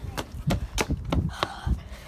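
A quick series of sharp knocks and thumps, about six in two seconds.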